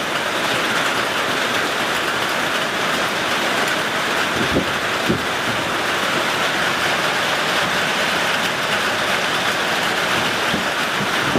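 Heavy rain pouring steadily, with two short soft knocks about halfway through.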